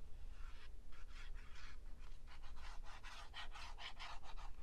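Fine metal tip of a squeeze glue bottle dragging and scratching across paper as glue is laid along the edge, a run of short, soft scratchy strokes.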